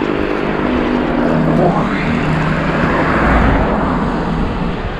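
A road vehicle passing close by, rising to its loudest a little past the middle and then fading, over a steady rushing noise.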